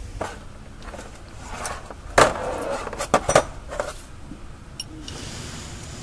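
Sharp metallic clinks and knocks of a socket wrench and extension handled against a transmission's mounting bolts and metal housing, loudest a little after two seconds in, with a quick pair near three seconds.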